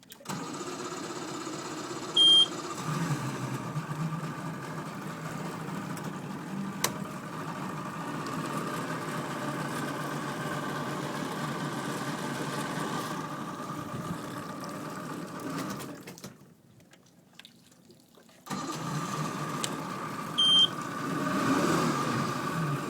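Johnson 90 outboard motor running steadily, with a short high beep about two seconds in and again near the end. The sound drops out for about two seconds in the middle, then the engine is heard again.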